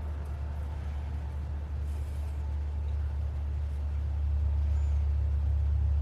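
A steady low hum that grows louder about four seconds in.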